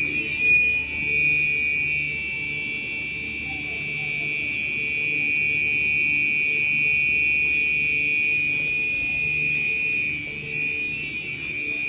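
Gentex Commander 3 fire alarm horn sounding on continuous, a steady, unbroken high-pitched tone, the signal of a fire alarm in activation.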